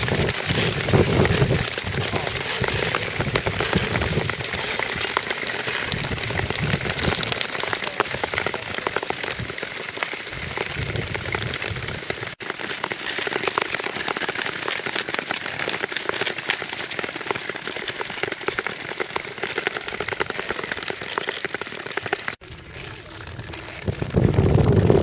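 Nordic touring skates gliding and scraping over natural lake ice, several skaters at once: a dense crackling hiss full of sharp clicks. The sound breaks off abruptly twice.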